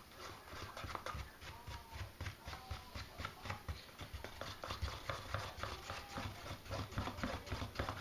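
A stick stirring thick polyester resin thickened with talc in a plastic tub, knocking and scraping against the tub's sides in quick, regular strokes as the catalyst is mixed in.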